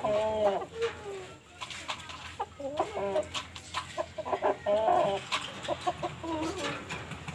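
Rooster giving a series of short clucking calls a second or two apart, with light clicks in between.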